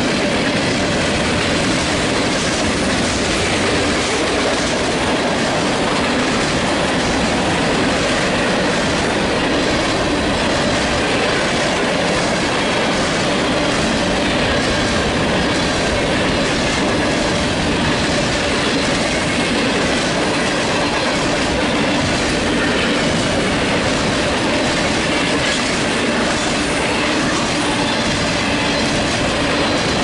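Freight cars (tank cars, coil cars and covered hoppers) rolling past close by at steady speed: a continuous loud rumble and clatter of steel wheels on rail. A faint high squeal from the wheels runs through it.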